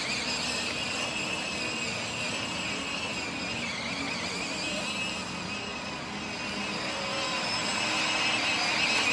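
Small outboard motor of a radio-controlled model inflatable boat running at speed, a steady high-pitched whine that wavers slightly in pitch. It fades a little midway, then grows louder near the end as the boat comes closer.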